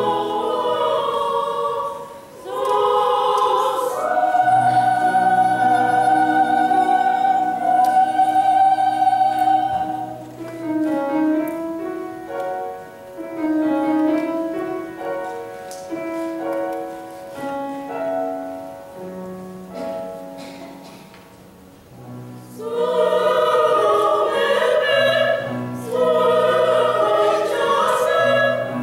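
Group of women's voices singing in operatic bel canto style with vibrato, recorded live in the hall. About a third of the way in the singing drops back to a quieter passage of held notes, and the full ensemble returns strongly about three quarters of the way through.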